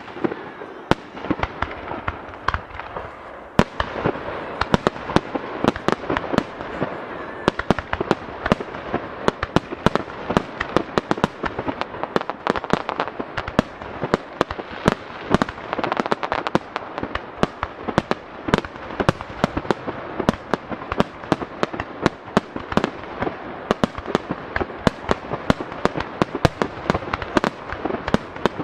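Fireworks display: aerial shells launching and bursting in quick succession, many sharp bangs every second over a continuous crackle. The barrage grows denser about three and a half seconds in.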